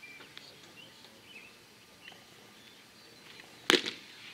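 Birds chirping faintly in the background over quiet outdoor ambience, with one sharp smack near the end.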